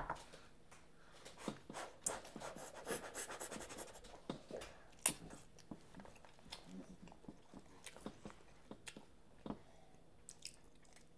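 Children eating instant cup noodles: quiet slurping and chewing with small wet clicks and smacks, busiest about two to four seconds in.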